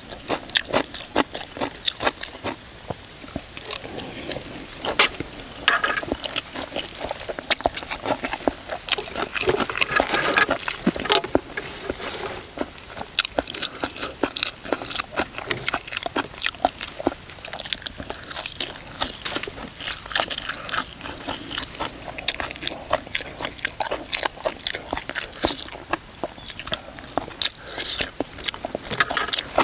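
Close-up eating sounds: a continuous, irregular run of crunching and wet chewing as crisp pounded cucumber salad is bitten and chewed.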